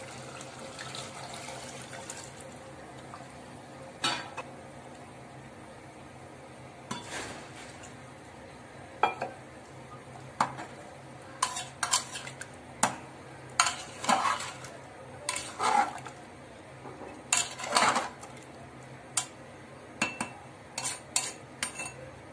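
Water poured from a steel mug into an aluminium pressure cooker near the start, then a metal spoon and spatula stirring the curry, clinking and knocking against the pot's rim and sides many times.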